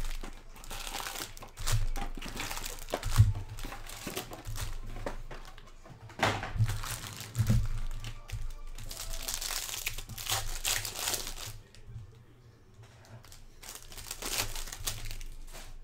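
Foil-wrapped trading-card packs crinkling and rustling as they are pulled from a hobby box and handled in a stack, with a few knocks among them.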